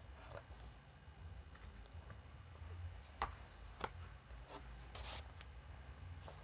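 Quiet room tone with a low rumble, two sharp clicks a little over three seconds in and a brief rustle about five seconds in.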